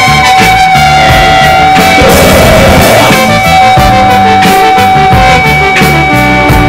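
Loud, dense rock music with guitar and drums, over a steady held high note.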